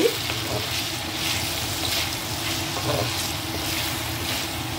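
Wooden spatula stirring green beans and sliced onions in oil in a metal kadhai, with repeated scraping strokes over a steady sizzle as the vegetables fry with turmeric and salt.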